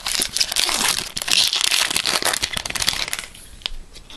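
Foil trading-card pack wrapper crinkling as it is pulled open by hand, dying down after about three seconds into a few lighter crackles.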